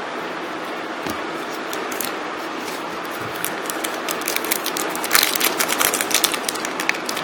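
Crinkling and rustling of Match Attax trading-card packets and cards being handled, over a steady hiss. It is faint at first, then from about halfway through it becomes a dense run of crisp crackles and clicks.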